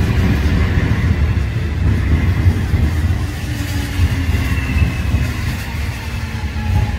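Busan Metro Line 1 electric train with PMSM-VVVF propulsion slowing into a station: thin electric motor whines falling in pitch over a heavy low rumble of steel wheels on rail.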